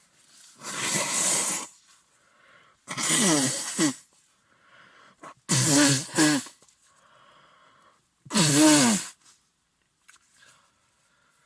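A man with a cold in a sneezing fit: a run of loud sneezes about every two to three seconds, one of them doubled, with quieter breaths between.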